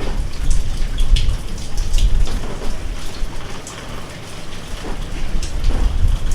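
Rain falling, with individual drops striking close by as sharp ticks over a steady hiss, and a low rumble underneath that swells and fades.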